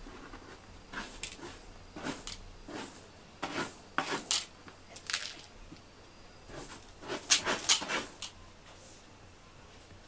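A cat scratching and digging in cat litter in a litter box: a series of short, irregular scrapes, loudest between about seven and eight seconds in.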